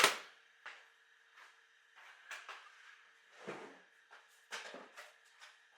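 Intermittent light knocks and rustles of small objects being handled and set down, irregular and about a second apart, over a faint steady hum.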